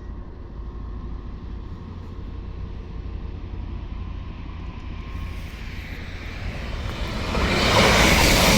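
A train approaching the level crossing, its noise swelling from a low rumble into a loud rush over the last second or so. Steady low wind rumble on the microphone underneath.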